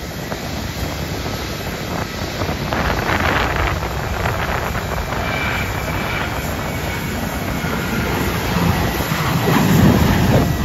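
Wind buffeting the microphone over a steady low rumble, with gusts swelling about three seconds in and more strongly near the end.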